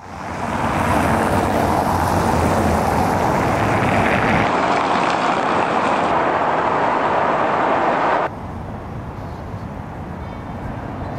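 Steady city street traffic noise, the rush of passing cars, dropping noticeably quieter about eight seconds in.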